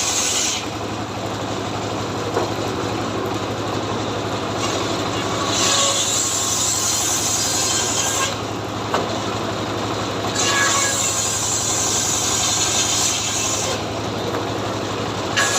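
Chainsaw engine running continuously. Its sound goes brighter and harsher, then duller, in stretches of a few seconds, with a steady low hum underneath.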